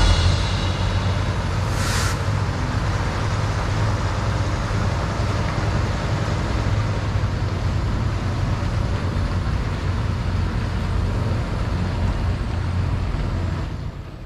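Western Star 4900SF heavy-haul tractor with an empty multi-axle lowboy trailer pulling away, its diesel engine running with a steady low drone and a brief hiss about two seconds in. The sound drops away near the end as the rig leaves.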